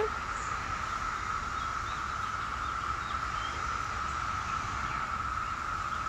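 Chorus of periodical cicadas (Magicicada) calling: a steady, unbroken high drone.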